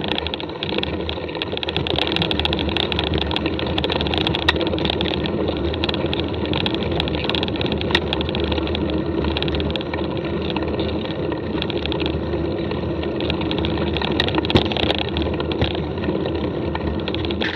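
Mountain bike rolling over a rough dirt track: a steady tyre rumble with many small rattles and clicks from the bike.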